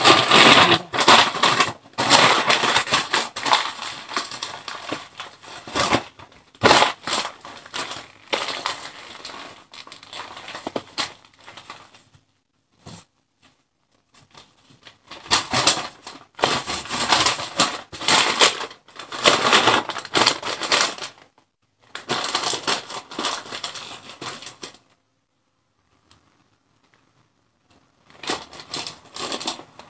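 Brown paper bag crinkling and crumpling as it is folded and wrapped by hand, in bursts with two short pauses.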